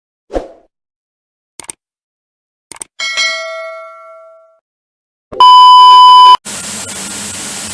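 Edited-in sound effects: a few short clicks, then a bell-like ding that rings out for about a second and a half, then a loud steady beep lasting about a second, followed by a steady hiss.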